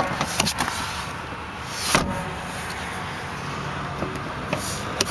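Clicks and knocks of a Land Rover Freelander's folding rear seat being released and moved back into place, with a rustling swish of the seat about two seconds in. A faint low steady hum runs underneath.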